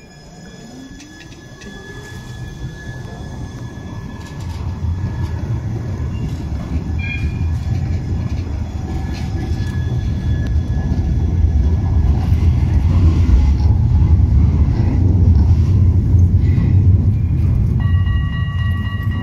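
Siemens Avenio low-floor tram moving off past at close range: a faint rising whine in the first few seconds, then the rumble of its wheels on the rails grows steadily louder.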